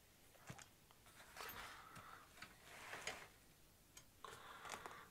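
Faint clicks and short scrapes of a steel guide rod being worked into a tight bracket of a 3018 CNC gantry, metal sliding and knocking against metal as the rod ends up jammed.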